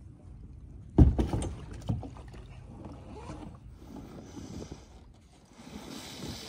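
Kayak hull knocking against a floating kayak launch: a loud hollow thump about a second in, a second knock soon after, then smaller knocks and water sloshing around the hull.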